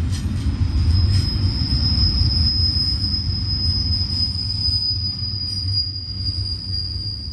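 Double-stack intermodal container train rolling past close by, its cars making a steady heavy rumble. About a second in, a steady high-pitched squeal of steel wheels on the rail sets in and keeps going.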